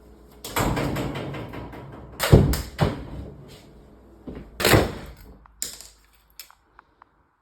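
Wooden kitchen cabinets being pulled out and handled: a rattling clatter in the first two seconds, then several heavy knocks and thuds, the loudest about two and a half seconds in and another near five seconds, and a few light clicks.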